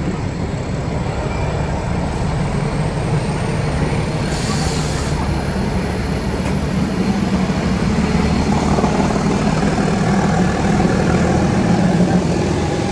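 Nilgiri Mountain Railway train running, with a steady low drone and rumble from the diesel-hauled train on the move. A short hiss comes about four seconds in.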